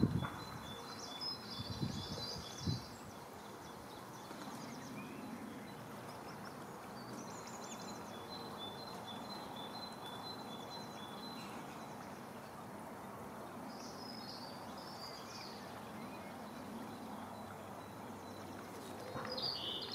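Outdoor ambience: a steady hiss of background noise, with small birds singing on and off and a faint run of evenly spaced high pips at times. A few low thuds come in the first three seconds.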